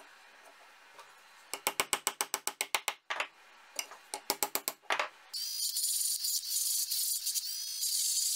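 A hammer tapping quickly on a small steel bracket held on a steel plate, in two quick runs of about seven taps a second. About five seconds in, a Dremel rotary tool with a sanding drum starts grinding the metal, a steady high-pitched grinding.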